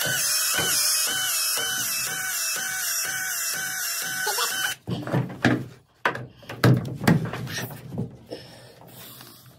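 Milwaukee M12 FUEL ProPEX expansion tool running for about four and a half seconds, expanding the end of white PEX tubing, its motor whine stepping up and down in pitch about twice a second as the head repeatedly expands and turns. After it stops comes a run of separate knocks and clicks.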